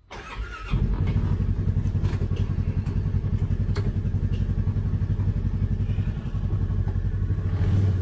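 Polaris Ranger side-by-side's engine cranking briefly and catching within about a second on a cold start, then idling steadily with a low, even rumble that grows a little louder near the end.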